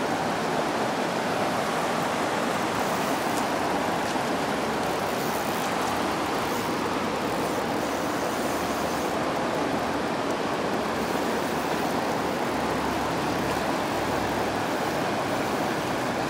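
Steady rush of flowing river water, an even noise that holds level throughout.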